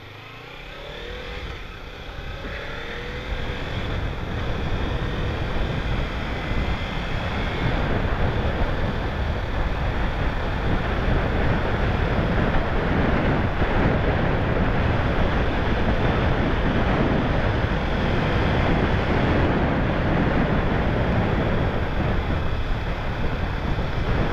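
Kawasaki Ninja 300 parallel-twin motorcycle pulling away and accelerating, its engine pitch rising over the first few seconds. It then settles into steady riding noise with wind rushing over the microphone at speed.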